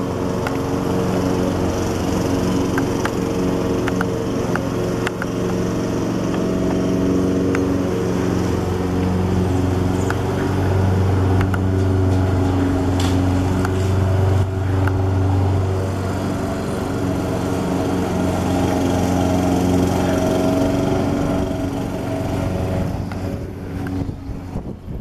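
Airbus A300-600F freighter's twin turbofan engines at climb power as it passes overhead after takeoff: a steady, loud drone with several held tones, fading away near the end.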